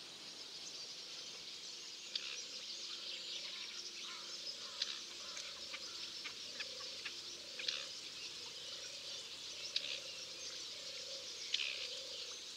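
Night pond ambience: a steady chorus of insects, with scattered short chirps and clicks, over low frog calls pulsing about once a second.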